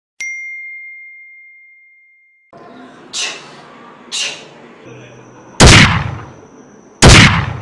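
Edited-in sound effects: a single bell-like ding that rings out and fades over about two seconds, then two short hissing bursts a second apart, then two very loud booming blasts about a second and a half apart, with a faint steady high whistle under the last part.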